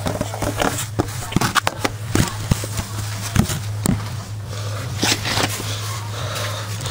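Clicks and knocks of a vintage McCulloch chainsaw being handled and readied for a start, then a rasping pull on its recoil starter cord about five seconds in; the engine does not catch.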